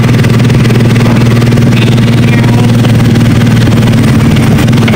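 Motorcycle engine running steadily while riding, a constant low hum under wind and road noise.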